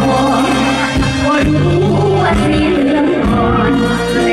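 Live Thai Isan luk thung band music played loud through a stage sound system, with a woman singing over it into a microphone.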